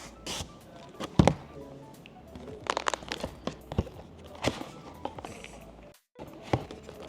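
Soft background music under scattered taps, thunks and clicks of a small cardboard product box and its packaging being handled and opened. The sound drops out completely for an instant near the end.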